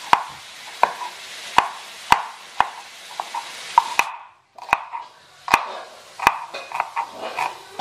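Kitchen knife slicing garlic and shallots on a wooden cutting board, each cut a sharp knock on the board, about one to two a second. A steady hiss underneath stops about four seconds in, and the cuts then come closer together.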